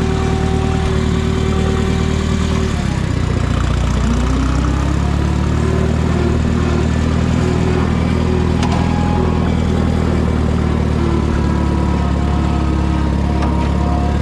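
Minneapolis Moline U302 Super tractor's gasoline engine running steadily. About three to five seconds in, its note shifts and rises, then it settles into a steady run again.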